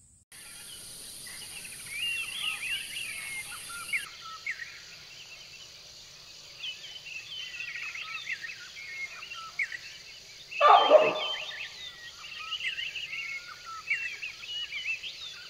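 Many small birds chirping and twittering in quick, overlapping calls over a steady high hiss. About ten and a half seconds in, there is one much louder, deeper call.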